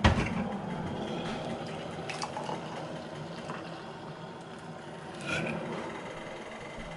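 Hot water poured from a kettle into a ceramic mug holding a stainless-steel tea infuser, a steady pour that fills the mug. It starts with a light clunk.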